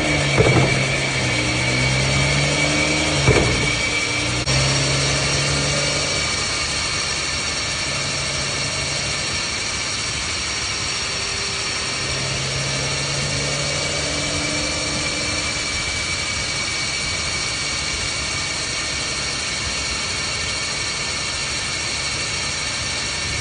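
BMW M140i xDrive's driveline giving two sharp clunks about three seconds apart near the start, over the steady running of the engine. The clunk is the one the owner puts down to the Wavetrac limited-slip differential, cause unknown.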